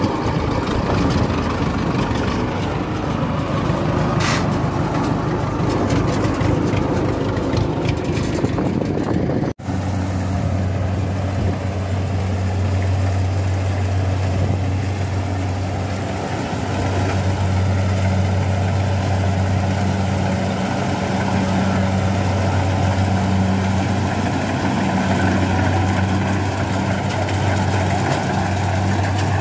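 A tracked rice-transport carrier's engine running. After a cut about ten seconds in, a Kubota combine harvester's diesel engine runs steadily with a deep, even hum as the machine cuts rice.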